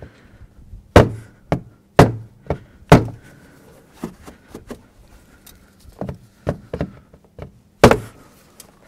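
Rubber mallet knocking on the bottom of a plastic engine air cleaner housing to seat a Christmas tree connector and grommet. Three sharp knocks about a second apart, then lighter taps, and one more hard knock near the end.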